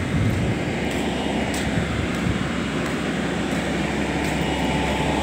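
Boat travel lift's engine running steadily while it lowers a fishing boat in its slings, a constant low drone.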